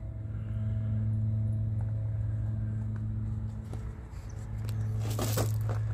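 Ford Triton V10 gas engine of a Class A motorhome idling with a steady hum, with a short clatter about five seconds in.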